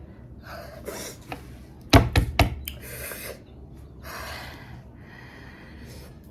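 A person gasping and breathing hard through the mouth, with breathy hisses again and again, as the burn of an extremely hot chili chip sets in. Three or four sharp knocks come close together about two seconds in.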